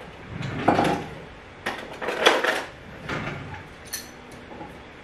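Clattering and knocking as a container and kitchen things are handled while someone tries to open the container, in several short bursts with a brief high clink about four seconds in.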